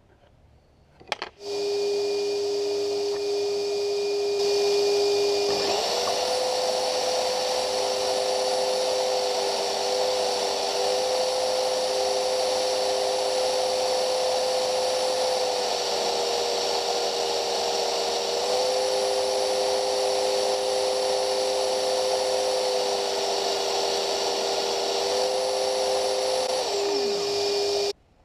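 Bosch electric hand planer, mounted upside down, running with a vacuum dust-extraction hose attached. One motor starts about a second and a half in, the louder planer motor joins a few seconds later, and both run steadily until near the end, when the planer winds down with a falling pitch and the noise cuts off.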